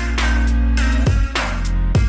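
Background music: an electronic track with a heavy drum beat.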